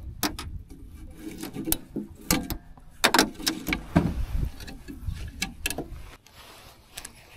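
Handling noise in an aluminum boat: irregular sharp knocks and clicks with rubbing and rustling of a jacket, as a caught crappie is handled on a cord.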